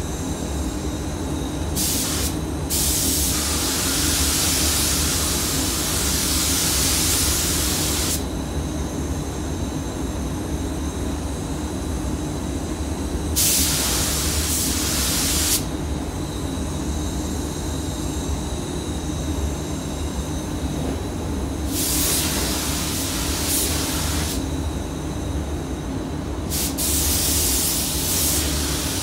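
Air spray gun hissing in bursts, one per pass as the trigger is pulled to lay on clearcoat: a short blip, then four passes of two to five seconds. Under it runs the steady drone of the spray booth's extraction fans.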